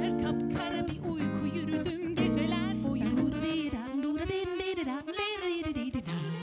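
Live jazz: a woman singing over chords on a hollow-body archtop jazz guitar. A little over halfway through the guitar chords drop away, leaving mostly a single melody line with vibrato.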